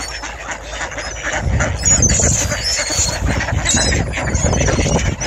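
A crowded flock of mallard ducks calling together in a dense din, with high squeaky calls mixed in; it grows louder about a second and a half in.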